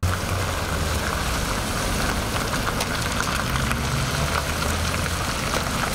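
Street traffic: cars' engines running at low speed and their tyres rolling over a pothole filled with loose crushed stone on a wet road. The sound holds steady, with faint scattered clicks over a low engine hum.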